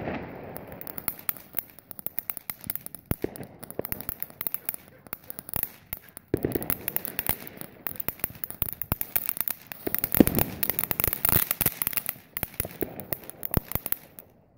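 Ground fountain firework spraying sparks: a steady hiss with dense, rapid crackling, dying away at the end.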